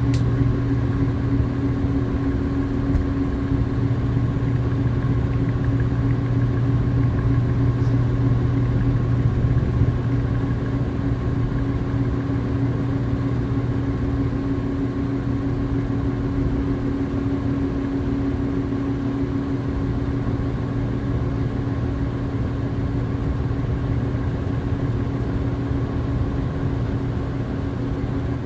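A steady mechanical hum, even in pitch and level, with a low drone and a few constant higher tones.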